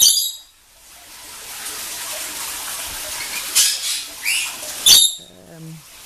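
Pet parrots squawking in short, harsh, high-pitched bursts: one right at the start and several more between about three and a half and five seconds in, one of them sweeping upward, over a steady background hiss.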